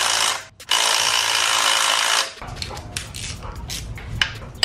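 Cordless impact driver backing out oil pan bolts: a short burst, then a steady run of about a second and a half. Lighter scattered clicks and knocks of hand tools follow.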